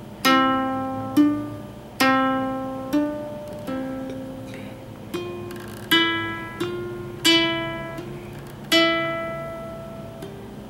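Ukulele notes played slowly as hammer-on and pull-off pairs on the first frets: each plucked note rings, then steps to a neighbouring pitch with a softer onset as a finger hammers on or pulls off, a new note every second or so.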